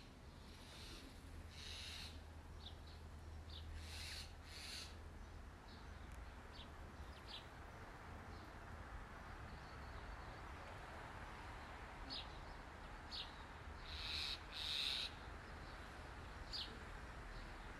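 Faint bird calls: short, high chirps and whistles scattered throughout, with two louder calls close together near the end, over a faint low hum.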